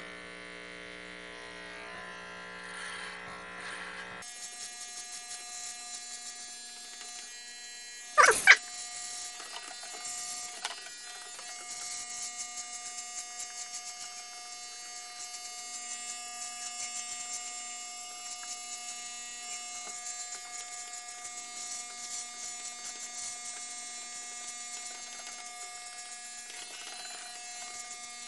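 Corded Oster electric hair clippers with a guard fitted, running with a steady buzzing hum as they trim a beard. A brief loud pop comes about eight seconds in.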